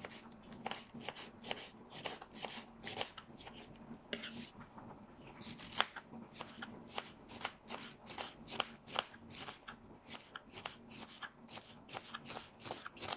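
Kitchen knife slicing a cabbage on a cutting board: crisp cuts about two or three a second, with a short pause about four seconds in.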